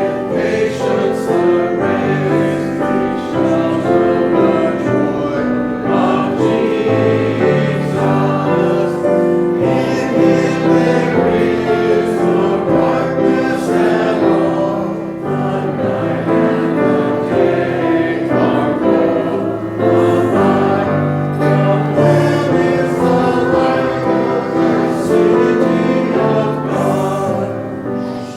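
A group of voices singing a Christian worship song together with instrumental accompaniment, in held, sustained notes.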